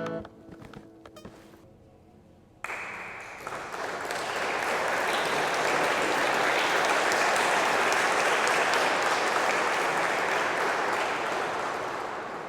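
The last notes of an acoustic guitar die away, then after a short pause the congregation breaks into applause about two and a half seconds in. The clapping swells and then slowly fades.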